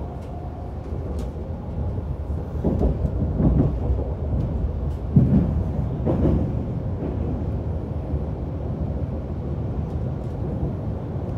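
Running noise of a passenger train heard from inside the coach: a steady low rumble of wheels on rail, growing louder and rougher for a few seconds near the middle as the train runs onto a steel truss bridge.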